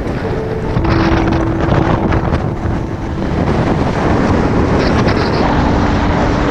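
Strong mountain wind buffeting the camera microphone, a loud gusting rumble. A faint steady whistling tone comes and goes within it.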